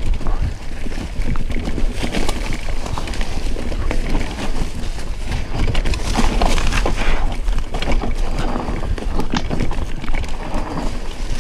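Mountain bike riding over a rough trail: tyres crunching and the bike rattling, with many short knocks. Wind buffets the microphone, giving a steady low rumble.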